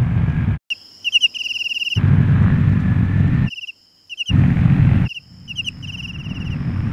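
Crickets chirping in a repeating pattern, cut into three times by the loud rushing rumble of a flaming meteor streaking through the sky, each stretch starting and stopping abruptly. Near the end a lower rumble builds steadily as the meteor comes in.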